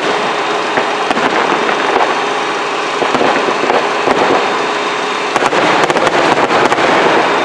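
Fireworks going off: a steady dense crackling, with a fast string of sharp pops and cracks starting about five seconds in.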